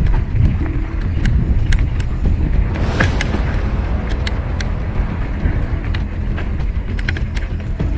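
Mountain bike rolling fast down a dirt singletrack: a steady rumble of wind and tyres on the action camera's microphone, with scattered sharp clicks and rattles from the bike and loose stones. A short rush of noise comes about three seconds in.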